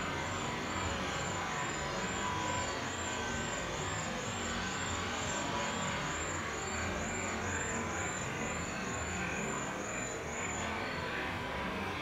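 Steady rushing background noise, like distant road traffic, with a high, thin chirp repeated about twice a second that stops shortly before the end.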